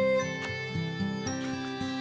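Instrumental background music: gentle melodic notes changing about every half second.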